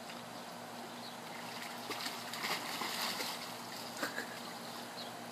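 Pool water sloshing around a dog standing or paddling in a swimming pool, with a few small splashes about two to three seconds in and again about four seconds in, over a faint steady hum.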